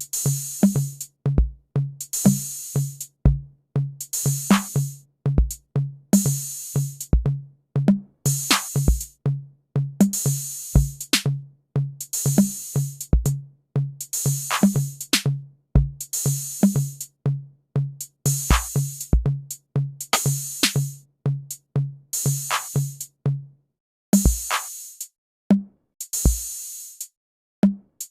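Programmed drum-machine beat made in BandLab: deep kick-drum thumps under a fast, pulsing low bass note, with a long hissing high hit about every two seconds. About 23 seconds in, the bass note drops out and the hits become sparser.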